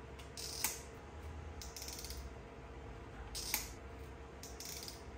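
Ratcheting hand crimper for Deutsch connector pins clicking as its handles are squeezed and released, in four short runs of clicks with a sharp snap about half a second in and another about three and a half seconds in.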